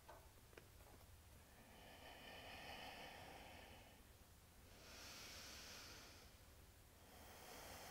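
Faint breathing of a person moving through yoga poses: three long, slow breaths, with a light tap just after the start.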